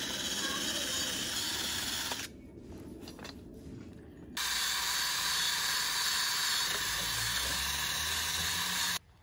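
Cordless drill spinning a steel wire cup brush against the rusty steel sleeve of an EZ curl bar, scouring off rust. It runs in two long stretches with a quieter spell of about two seconds between them, and cuts off suddenly near the end.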